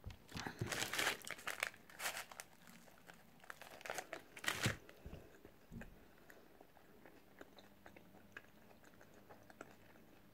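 A person biting into and chewing crisp food close to the microphone: a run of loud crunches over the first five seconds or so, then quieter chewing.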